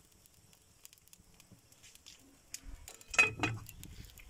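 A metal lid set down on a cooking pot with a clank about three seconds in, followed at once by a second, smaller knock and a brief ring. Faint crackling from the wood fire under the pot can be heard before it.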